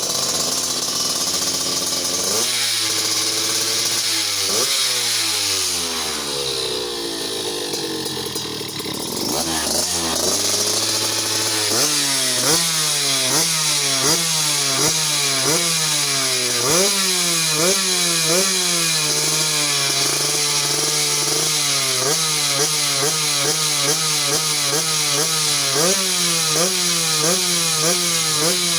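Yamaha F1ZR two-stroke motorcycle engine with a 'knalpot udang' expansion-chamber exhaust, being revved. Its pitch swings up and down slowly over the first several seconds. After that come quick throttle blips, about one a second.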